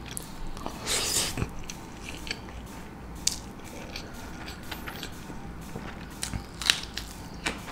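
Close-up eating sounds: a mouthful of chicken biryani being chewed, then a few sharp crunches as a raw green chilli is bitten.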